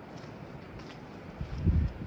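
Footsteps on a slushy, snow-covered sidewalk, with a low rumble on the microphone that swells into a brief loud thump near the end.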